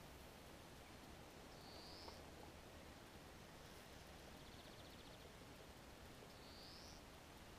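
Near silence: faint lakeside ambience, with two short rising high chirps about five seconds apart and a faint high buzzing trill between them.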